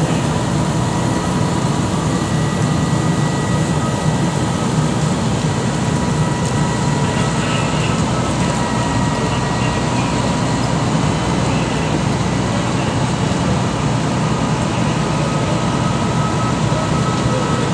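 Fire engines' diesel engines running steadily to drive their water pumps for charged hose lines: a continuous low rumble with a thin steady whine above it.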